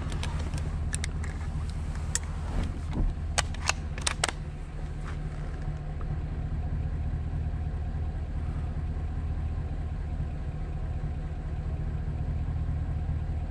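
Pickup truck engine idling steadily. Several sharp clicks and clatters come in the first few seconds as a rifle is handled.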